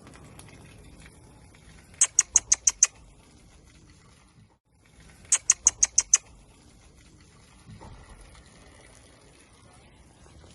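Two quick runs of six or seven sharp, high-pitched chirps, about three seconds apart, from a small animal.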